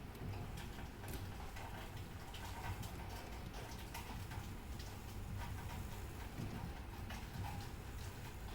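Grandfather clock with a Mauthe mechanical movement ticking steadily, the escapement clicking about once a second as the pendulum swings, over a low background hum.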